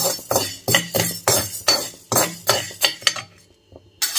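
Metal spoon scraping and stirring dry urad dal across a coated frying pan, about three strokes a second, stopping about three seconds in with one more stroke near the end. The lentils are being dry-roasted until light brown.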